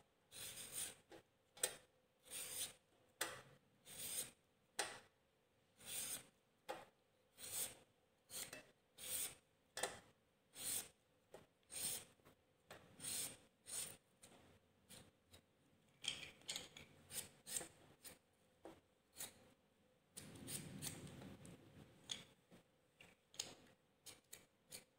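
Vegetable peeler scraping strips of skin off a cucumber in short repeated strokes, a little more than one a second. Near the end the peeler moves on to a carrot.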